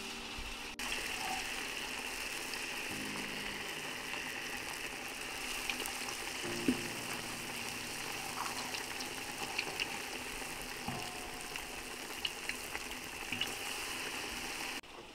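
Battered potato slices (aloo pakora) deep-frying in a pot of hot oil: a steady sizzle with scattered small pops and crackles, starting abruptly about a second in.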